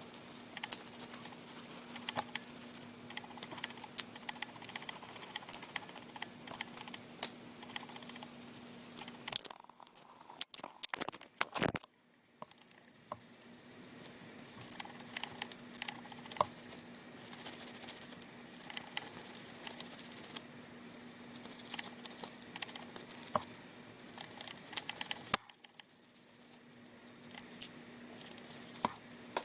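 Towel damp with glass cleaner rubbed and scrubbed over a phone's plastic casing: a scratchy rubbing with many small clicks and taps, broken by a brief pause with a few sharper clicks and knocks about ten seconds in.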